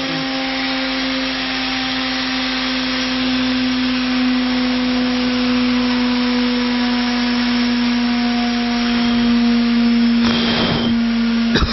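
CNC router spindle running steadily while carving MDF: a steady whine over a hiss of cutting noise, with a short louder rush of noise about ten seconds in and a sharp click near the end.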